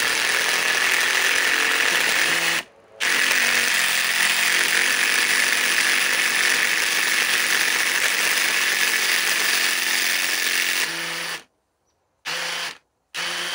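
DeWalt XR DCF860 brushless impact driver on speed 1 hammering a long screw into a log, with a short break about three seconds in. About eleven seconds in the hammering stops and the driver spins on briefly without it, then silence and two short bursts: the screw head has stripped out.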